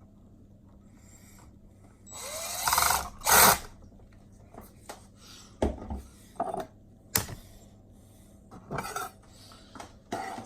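Small powered screwdriver whirring up and running in two short bursts about two seconds in, driving small screws into an RC truck's plastic transmission case. After that come several short clicks and knocks of small parts and tools being handled, the sharpest about seven seconds in.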